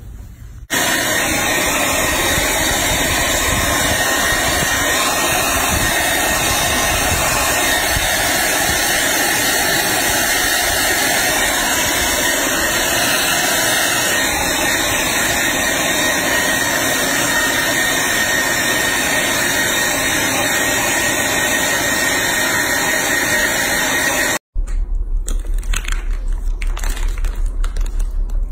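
Hand-held hair dryer running steadily, blowing a baby monkey's wet fur dry after its bath: a loud even rush of air with a thin steady whine over it. It switches on just after the start and cuts off abruptly near the end.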